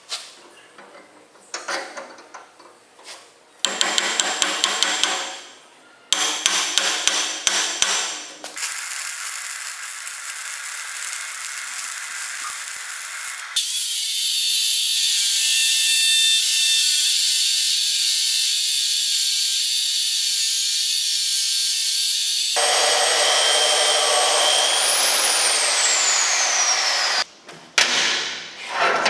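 A string of workshop metalworking tool sounds cut together. First come scattered clicks and two short runs of rapid, evenly spaced strikes. Then a steady cutting or grinding noise runs for several seconds, and a long, higher steady tool noise follows. Near the end a tool's whine rises and then falls away as it winds down.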